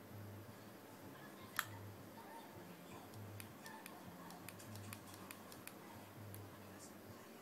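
Small plastic control buttons on an Octopus AF-38 speedlite clicking under a thumb: one sharper click, then a quick run of about a dozen light clicks as the manual power level is stepped along the LED bar.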